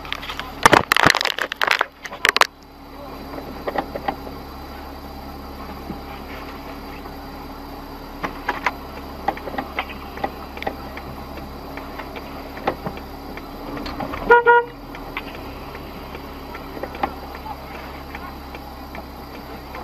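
Loud knocks and scrapes of a dashcam being bumped and handled for the first two seconds or so, then a steady low hum with scattered light clicks. About fourteen seconds in, a car horn gives one short toot.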